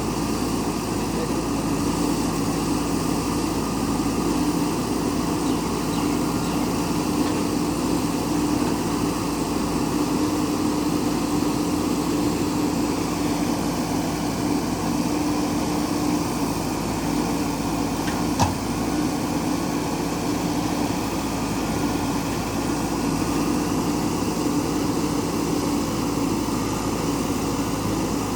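JCB backhoe loader's diesel engine running at a steady pitch, with one sharp click about two-thirds of the way through.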